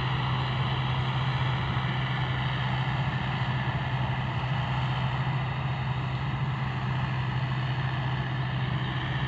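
Combine harvester running steadily while cutting rice, a continuous low engine drone with no change in pace.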